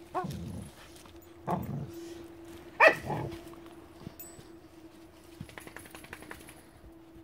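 A pit bull barks three times, about a second and a half apart, the third bark the loudest; faint rapid clicking follows a few seconds later.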